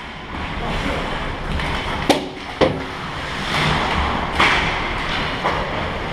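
Ice hockey play on a rink: two sharp clacks about half a second apart, then several skate blades scraping the ice in short hissing strokes.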